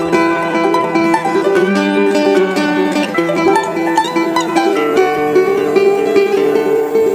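Background music of plucked string instruments playing a quick, steady melody.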